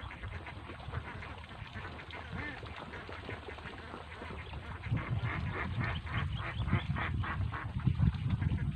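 A flock of itik (Philippine native domestic ducks) quacking in rapid, overlapping calls, getting louder about five seconds in.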